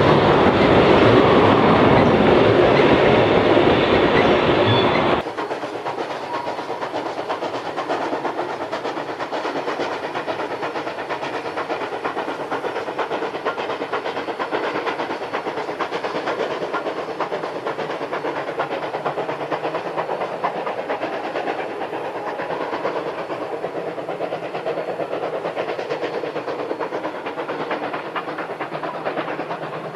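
Heritage steam train running on the line. The sound drops abruptly to a quieter, steadier level about five seconds in.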